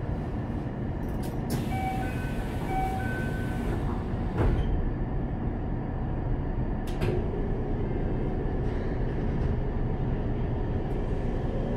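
Cabin of a stopped Keikyu 600 series electric train, with the car's equipment giving a steady low rumble. About two seconds in there is a brief hiss with a few short high tones, and a single sharp knock comes about four and a half seconds in.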